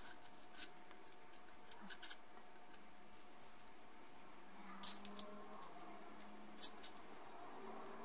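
Metal spoon and plastic spatula scraping and clicking against a mixing bowl while scooping coconut macaroon mixture into paper cupcake liners. A scatter of short, faint scrapes, the clearest about five and seven seconds in.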